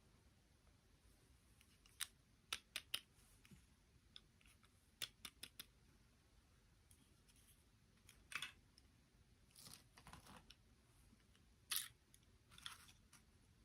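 Quiet handling noises: a few sharp clicks in small clusters, then several brief rustles, as small objects are handled.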